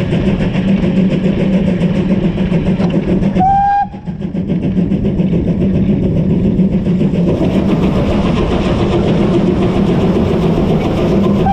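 BR Standard Class 2MT 2-6-0 steam locomotive running, heard from on board, with a steady beat of its exhaust and running gear. A short whistle blast sounds about three and a half seconds in, and near the end the sound carries more echo as the engine enters the tunnel.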